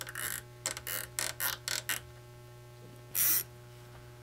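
Nylon cable tie being pulled tight around a wire bundle, ratcheting through its lock in short quick zips: six or so in the first two seconds, then one longer pull about three seconds in.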